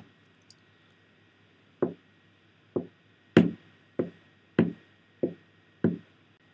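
A pair of sneakers held in the hands and pressed onto a hard surface, making footstep foley: seven footfalls, starting slowly and then settling into an even walking pace.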